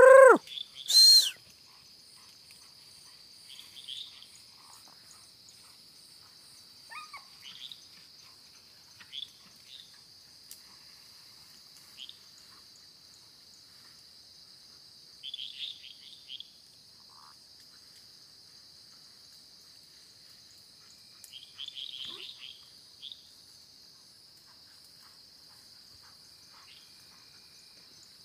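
Night-time chorus of insects, a steady high-pitched trill, with short chirping calls from frogs breaking in every few seconds. At the very start there is one loud short cry that rises and falls in pitch, followed about a second later by a sharp hissing burst.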